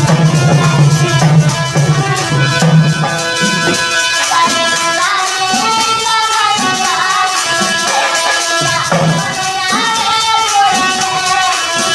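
Indian folk music with hand drums and a melodic lead whose pitch bends, opening on a strong low drone for the first few seconds.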